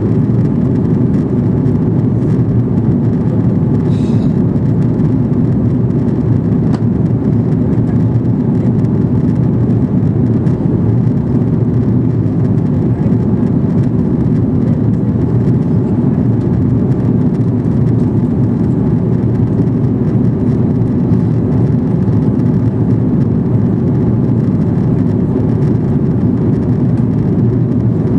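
Steady low cabin noise inside an Airbus A330 airliner in flight: an even rush of engine and airflow noise heard from the passenger seat.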